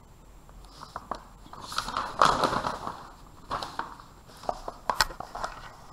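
Handling noise: rustling, loudest about two seconds in, with a scatter of sharp clicks and taps.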